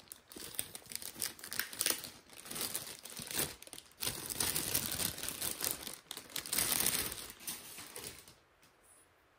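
Clear plastic bag crinkling and rustling as it is pulled off a hard plastic device. It stops about a second before the end.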